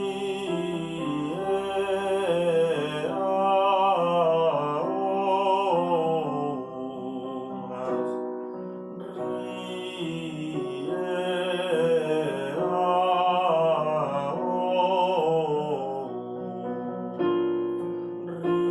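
A man singing a vocal warm-up exercise over piano chords: two sung phrases whose pitch steps up and back down, with the piano holding a chord between them and shifting to a new chord near the end.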